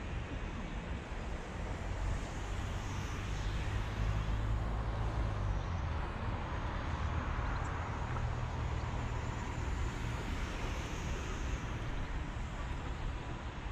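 Small electric motor and propeller of a micro RC P-40 Warhawk warbird flying at a distance, a faint high whine that swells and fades as the plane passes, over a low steady rumble.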